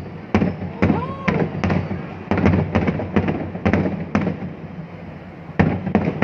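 Aerial fireworks bursting overhead, a dozen or so sharp bangs in quick, irregular succession, with a short lull about four and a half seconds in before more bangs.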